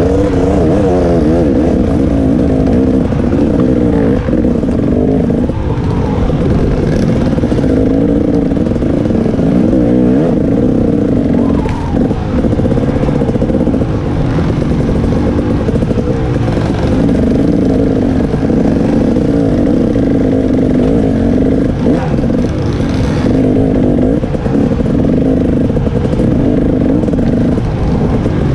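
KTM 300 XC-W Six Days' single-cylinder two-stroke engine, heard from on the bike, its revs rising and falling constantly as it is ridden over rough trail, with a few brief knocks.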